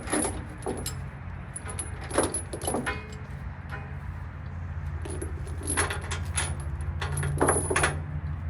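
A semi truck's engine runs steadily and low. Over it, short bursts of metallic jingling and clicking come several times, loudest about two seconds in and again near the end.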